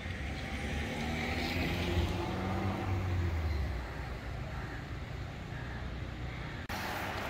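Street traffic: a motor vehicle's engine rumbling low, its pitch rising a little for a couple of seconds as it pulls away. Near the end the background cuts abruptly to a different, brighter traffic hiss.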